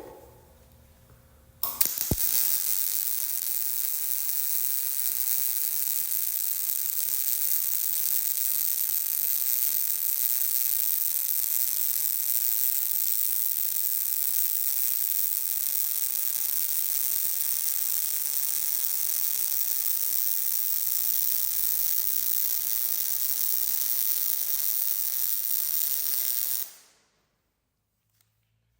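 Hobart Multi-Handler 200 MIG welder arc running a bead on thin steel exhaust pipe with .030 wire. It is a steady crackling sizzle that starts about two seconds in and cuts off sharply a couple of seconds before the end. It is the even "sizzling bacon sound" of a correctly set arc.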